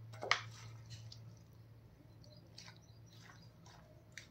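Metal spoon stirring chicken pieces in a yogurt marinade in a bowl: faint wet squelches and scattered clicks, the loudest about a third of a second in. A steady low hum runs underneath.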